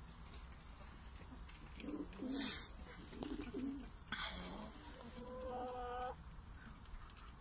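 Show homer pigeons cooing, low wavering coos about two and three seconds in. There are a couple of brief rustles, and a short steady higher-pitched tone for under a second near the end.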